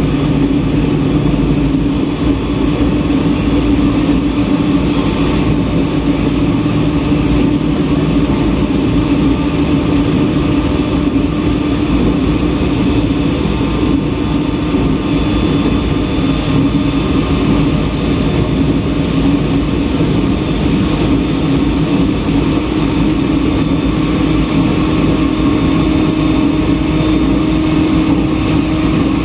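JR East E127 series electric multiple unit running at steady speed, heard from inside the car: an even hum of motors and wheels on rail, with a held tone and no change in speed.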